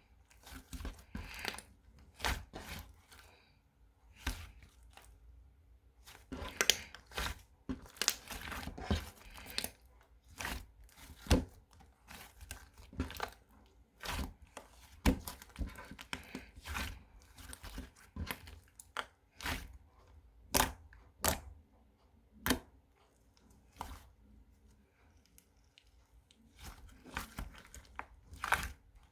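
Packaging being crinkled and torn open by hand, in many short, irregular crackles and sharp clicks.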